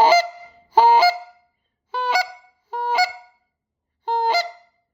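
A goose call blown in five short honks about a second apart, each note breaking in pitch. The caller's hand is cupped over the call's end with one finger across the hole, which gives the honks a deeper tone.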